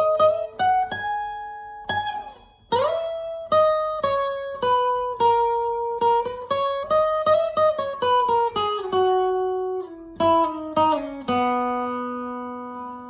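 Alvarez Masterworks MD90 acoustic guitar playing a single-note melody, each note plucked separately, with a slide up into a note about three seconds in. The line climbs, then steps downward and ends on a low note left ringing and slowly fading.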